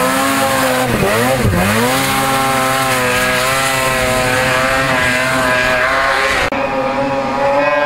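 Two-stroke snowmobile engine revving hard. The pitch dips and rises twice about a second in, then holds high and steady at full throttle as the sled climbs the slope.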